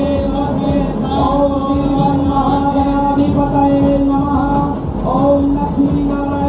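A male voice chanting devotional Hindu mantras in a sung melody over a steady held tone.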